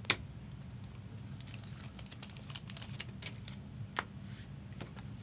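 Trading cards being handled with a light rustle and scattered small ticks. A sharp click just after the start is the loudest sound, and another clack comes about four seconds in.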